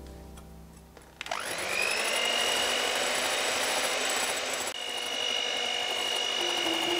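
Electric hand mixer with a wire whisk starting up about a second in, its motor whine rising quickly to a steady high pitch as it beats egg whites and sugar into meringue in a glass bowl. The pitch steps up a little past halfway.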